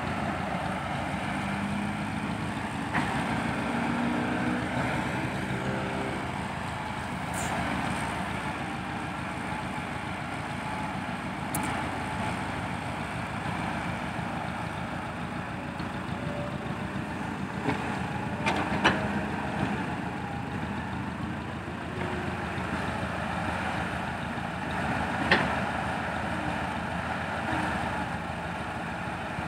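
Heavy diesel dump truck engine running steadily, its pitch rising briefly a few seconds in, with a few short sharp sounds about two-thirds of the way through.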